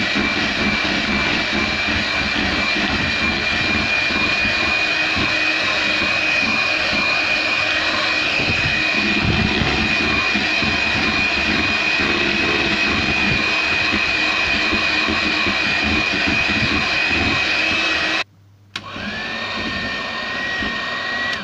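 Electric hand mixer running steadily with a high motor whine, its beaters whipping mascarpone and pistachio cream in a plastic bowl. Near the end it cuts out briefly, then runs again at a slightly lower pitch.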